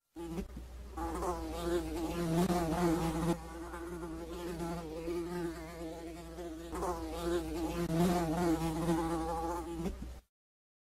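Housefly buzzing about, its pitch wavering up and down as it swells louder and fades twice. It cuts off suddenly near the end.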